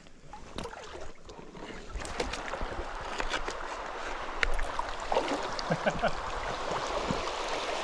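Shallow creek water rushing over a stony riffle, a steady rush that comes up about two seconds in, with scattered small splashes and clicks.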